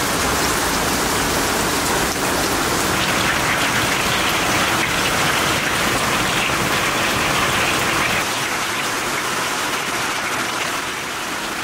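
Steady, heavy rain falling, easing slightly about eight seconds in.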